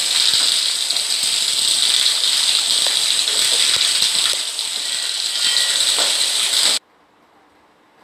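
Steady, loud high-pitched hiss of background noise that cuts off suddenly near the end, leaving near silence, as the recorded clip ends.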